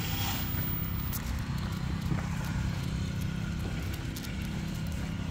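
A person's footsteps walking on an asphalt street, over a steady low rumble.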